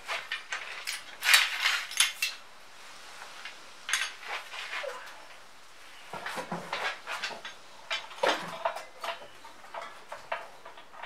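Irregular clinks and clatter of small hard objects being handled, in several busy bursts with short lulls between.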